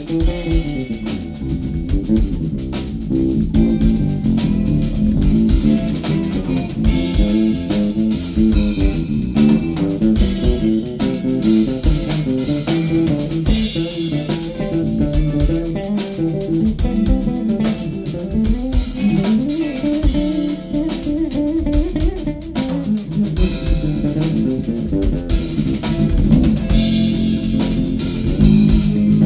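Six-string Fodera Imperial electric bass playing a busy, melodic solo line over a drum kit.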